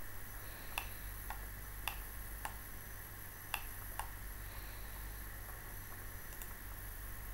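Computer mouse clicks, about six sharp single clicks spaced unevenly over the first four seconds, over a steady low hum and hiss.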